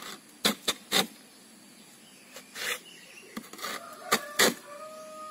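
Sharp knocks of a hand tool striking a wooden batako mold packed with cement-sand mix: three in quick succession, then several more after a pause.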